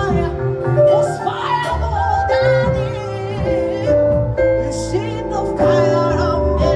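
Live worship music: sustained chords and a bass line under a voice holding long notes with vibrato.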